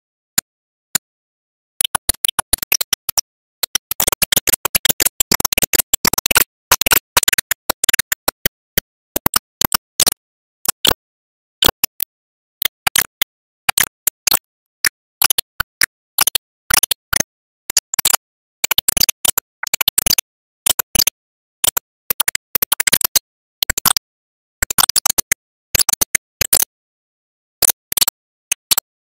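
Background music, chopped into rapid stuttering bursts with dead silence between them.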